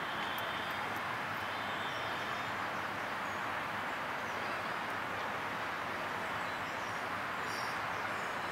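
Steady, even rushing background noise, with a few faint high bird chirps over it.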